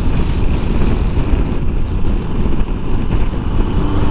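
Wind buffeting the microphone over the steady engine and road noise of a touring motorcycle riding at road speed in gusty crosswinds.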